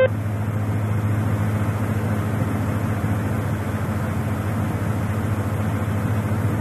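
Steady cabin drone of a Beechcraft King Air's twin turboprop engines and propellers in a climb, set to 20% torque, with a strong low hum.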